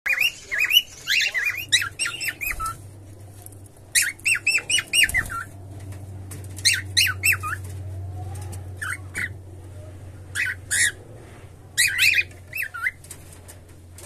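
Cockatiel singing: several phrases of quick, warbling whistled notes, each a second or two long, with short pauses between them.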